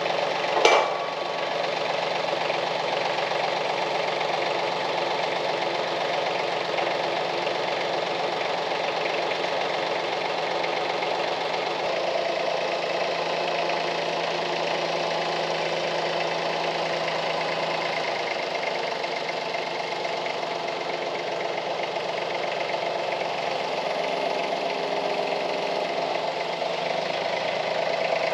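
Compact tractor engine running steadily as it lifts and carries a metal roof truss on a front-loader boom pole, its note shifting slightly a couple of times. A single sharp knock sounds about a second in.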